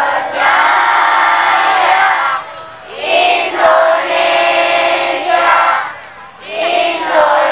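Children singing together in unison, in sustained phrases of about three seconds with short breaks between them.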